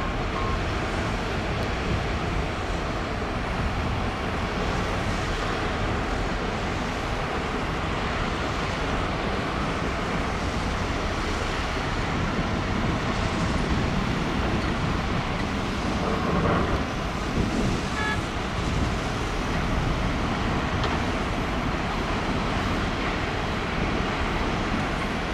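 Many diesel excavators and dump trucks running across an earthworks site at once, blending into a steady engine din. It swells briefly louder about two-thirds of the way through.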